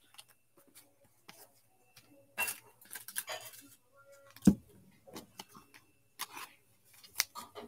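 Gloved hands handling a trading card and a clear plastic card holder: light rustling, clicks and taps, with one sharp knock about four and a half seconds in.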